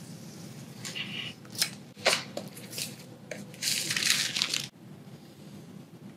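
Clear plastic wrapping rustling and crackling as hands pull it off a cardboard box. A few sharp crackles come in the first three seconds, then a denser rustle lasts about a second and stops well before the end.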